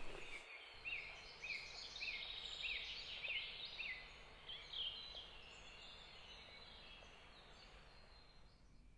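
Birds singing: a string of short rising-and-falling notes repeated for the first four seconds or so, then fainter, more varied chirps that die away, over faint background hiss.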